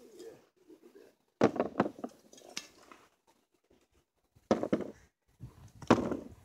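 Digging by hand in a potato bed: three short bursts of scraping and clinking, about a second and a half in, then twice more near the end.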